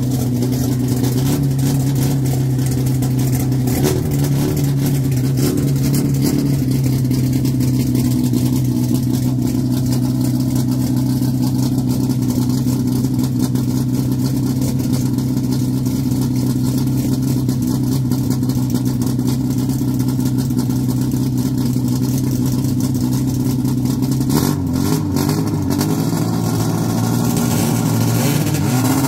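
Car engine running at a steady, held speed, its note changing about 24 seconds in.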